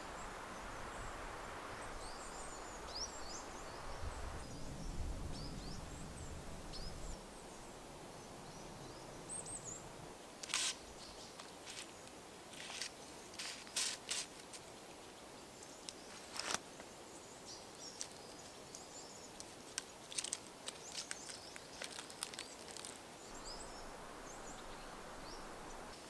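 Woodland ambience with small birds chirping, and a scattering of sharp clicks and rustles, with a brief low rumble a few seconds in.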